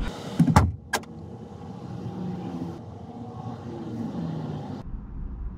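Two sharp clicks in the first second, then steady vehicle and traffic noise. A low, steady engine rumble comes in near the end.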